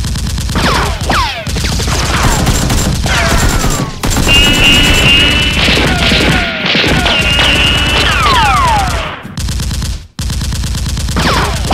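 Rapid automatic gunfire sound effects, with repeated whines that fall in pitch between the bursts. The firing breaks off briefly about ten seconds in.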